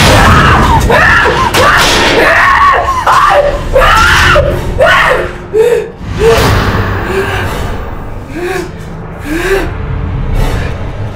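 Voices crying out and gasping in short, rising-and-falling cries, dense at first and thinning to a few single cries after about six seconds, with music underneath.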